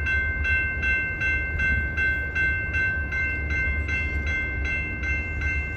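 Railroad grade crossing warning bell ringing rapidly and evenly, about two and a half strokes a second, over a continuous low rumble.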